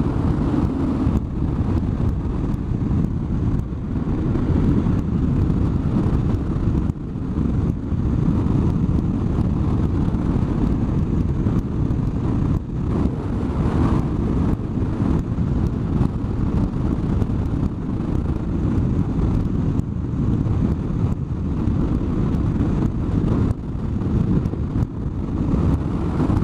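Motorcycle ride heard from the rider's helmet: a steady rush of wind and road noise, with the BMW R1100RS's air-cooled boxer-twin engine running underneath at cruising speed.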